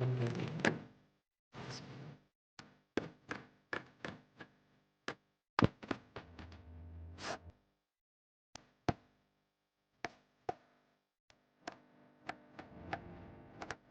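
A series of irregular sharp knocks and taps, some close together and some a second or more apart, with short stretches of silence between them.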